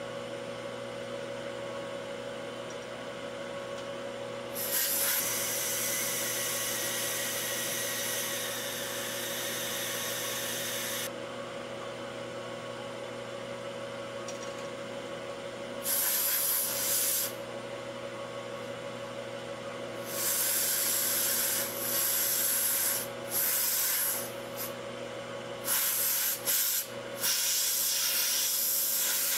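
Bridgeport milling machine running steadily with a steady hum as a dovetail cutter cuts the rear sight dovetail in a 1911 pistol slide. About six loud hissing blasts of compressed air from a blow gun clear the chips. The first blast lasts about six seconds and the others are shorter.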